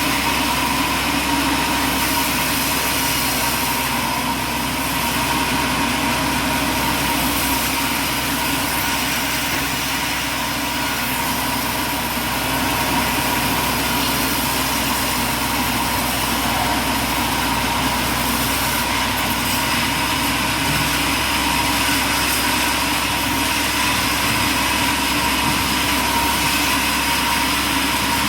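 Heavy machinery running steadily: a continuous engine-like drone with a steady whine on top, unchanging throughout.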